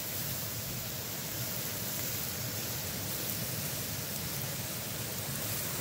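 Sauce-basted eel fillets sizzling on a wire grill over charcoal, a steady hiss with a few faint crackles.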